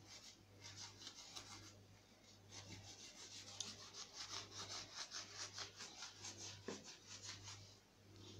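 Sponge scrubbing a metal piece with a wet cleaning mixture: faint, quick rubbing strokes, about three a second, busiest in the second half, over a low steady hum.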